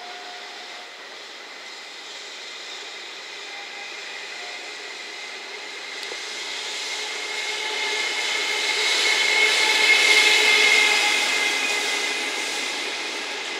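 JR Freight EF210 electric locomotive hauling a container train passing close by, with a steady high whine over the running noise that swells to its loudest about ten seconds in, then eases as the container wagons roll past.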